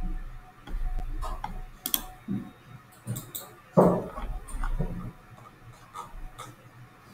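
Scattered computer mouse clicks, with a louder thump about four seconds in.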